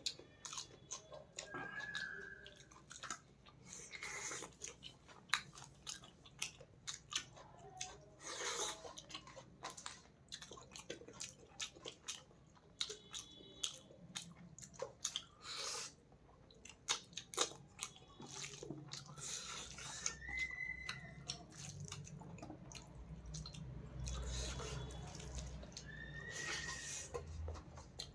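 Close-miked chewing of fish and rice: wet, irregular mouth clicks and lip smacks, with a few short high squeaks.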